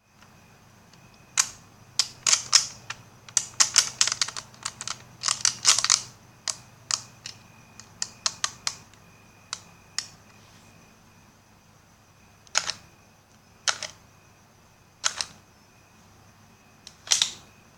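Plastic clicks and snaps of a Nerf blaster's mechanism being worked: a rapid, irregular flurry of sharp clicks for several seconds, then four single, separate snaps a second or more apart.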